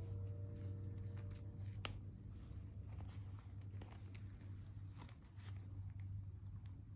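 Quiet handling of a paper journal: scattered soft rustles and light taps over a steady low hum.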